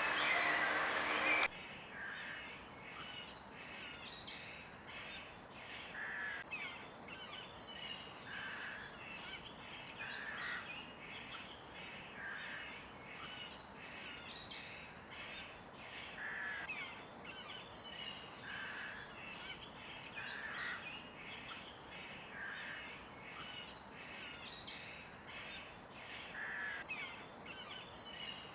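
Several birds chirping and calling: many short, high chirps and quick sweeps, with a lower call repeating about every two seconds. About a second and a half in, a louder, fuller sound cuts off abruptly and the chorus goes on quieter.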